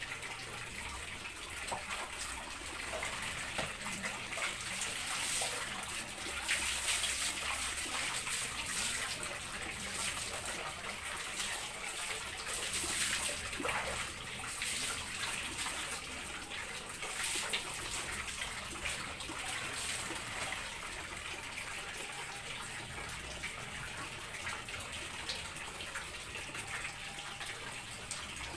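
Tap water running steadily into a large plastic water drum in a tiled bathroom, with louder splashing of water for several seconds around the middle.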